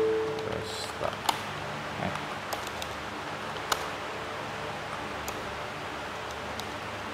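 Low steady hiss with a few sparse, soft clicks from computer keyboard keys being typed. A held musical note from background music fades out in the first half second.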